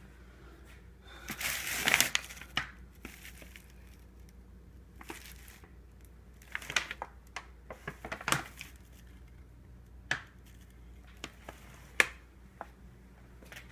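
Handling noises: a rustle about one to two seconds in, then scattered sharp clicks and knocks, about a dozen, spread through the rest.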